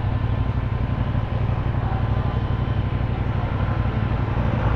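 CFMOTO 450NK's parallel-twin engine running steadily at low revs, with an even low pulsing throb.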